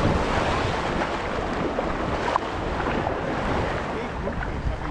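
Wind buffeting the microphone over small waves washing and lapping in shallow surf, a steady rushing noise with a low rumble.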